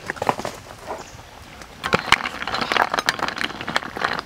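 Snail shells knocking and clinking against each other and the steel wok as a metal ladle stirs them in boiling water. A few scattered clicks at first, then a dense clatter from about two seconds in.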